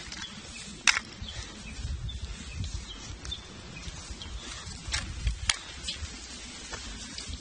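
Rain jacket fabric rustling and brushing against the microphone while walking downhill, over a low rumble. A few sharp clicks cut in, the loudest about a second in and more around five seconds.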